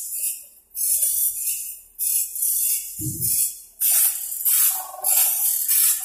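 Automatic band saw blade sharpening machines at work, the grinding wheel rasping against the blade's teeth one tooth at a time in short, high, hissing strokes, repeating roughly every half second to a second. A dull thump about three seconds in.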